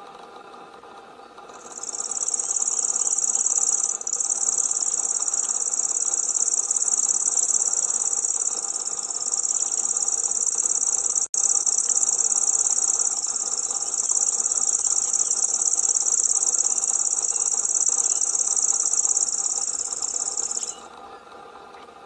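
Grasshopper warbler's reeling song: one continuous high, insect-like buzzing trill that starts about two seconds in and runs for nearly twenty seconds, broken only by a split-second gap near the middle. A steady low hum lies underneath.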